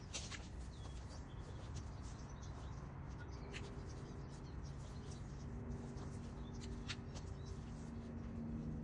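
A few faint, sharp snips at irregular intervals: hand pruners and loppers cutting small plum-tree shoots back during pruning.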